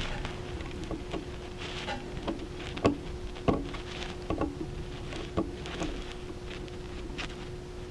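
Irregular small clicks and taps of a hand tool on metal as scope-mount screws are snugged down, over a steady faint hum.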